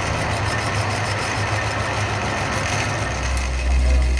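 Metal lathe running, turning a truck axle shaft in its chuck: a steady low motor hum that deepens and gets a little louder about three seconds in.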